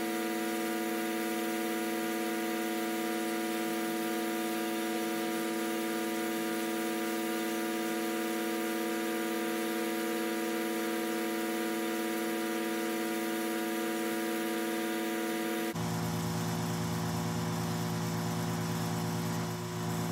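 Microdermabrasion machine's motor humming steadily. About 16 seconds in its tone changes abruptly and drops lower, then runs on steadily.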